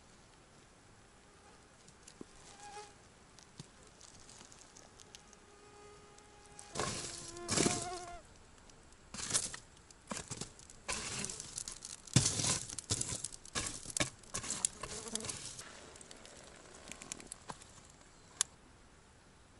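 Flies buzzing close by in irregular passes, loudest in the middle, with scattered short crackles among them.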